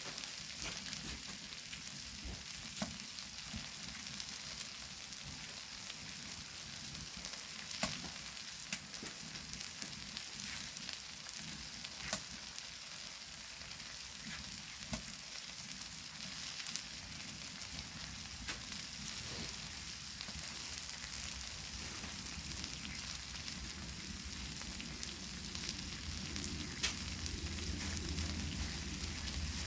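Pork belly and tripe sizzling on a flat stone heated on a wood-burning stove made from a gas cylinder: a steady hiss with scattered small pops. A low hum comes in near the end.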